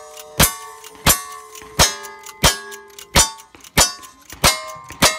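Lever-action rifle fired in quick succession at steel targets: about eight shots, roughly two-thirds of a second apart, each followed by the ring of a struck steel plate.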